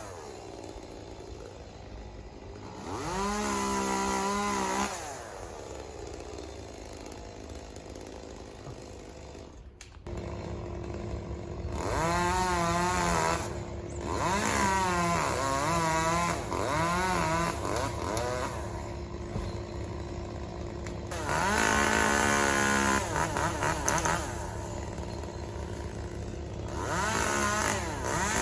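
Chainsaw idling between cuts and revving up several times, its pitch rising and falling with each burst as it works through a tree.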